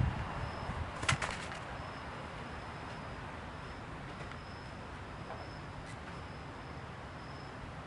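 Steady outdoor background noise with a short clatter about a second in, and a faint high chirp repeating every half second or so.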